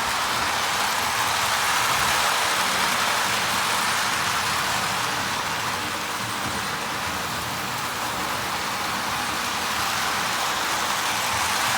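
Postwar O-gauge electric toy train running on its track: a steady running noise of the motor and the wheels on the rails.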